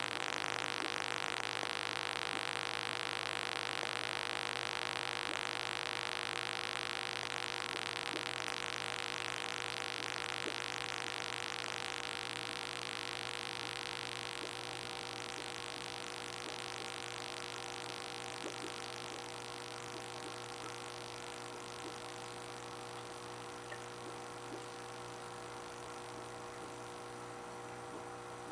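Steady electrical hum of running aquarium equipment, with a hiss over it that fades away in the second half.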